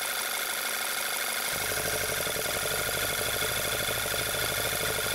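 2009 Volkswagen Passat CC petrol engine idling steadily with its oil filler cap off, drawing unmetered air into the crankcase and running lean. A low rumble joins the engine sound about one and a half seconds in.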